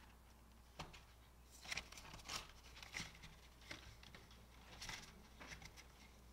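Faint rustling of a paper banknote and a plastic binder envelope being handled: several soft, short rustles over a low room hum.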